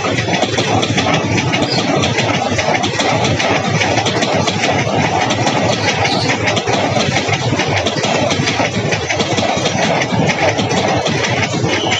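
Passenger coaches of an Indian Railways express train rolling past: a loud, steady rumble and rapid clatter of steel wheels on the rails.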